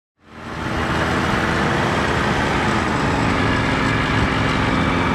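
Ultralight aircraft's piston engine and propeller running steadily, heard from inside the cockpit. It fades in at the start and holds a steady drone, whose pitch dips slightly about halfway through.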